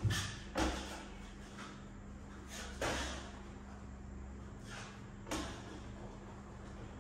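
A few sharp knocks and taps from hand work on a wall panel, the loudest right at the start and about half a second later, with more near three and five seconds in, over a steady low hum.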